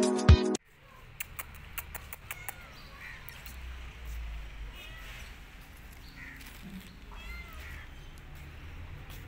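Calico cat meowing several times in short calls.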